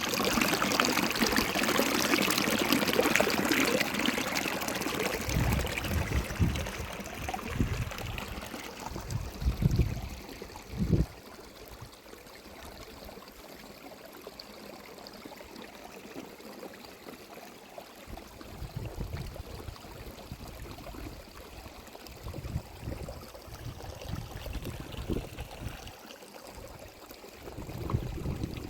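Water running or pouring in an even, rushing stream, louder for about the first eight seconds and then steadier and fainter.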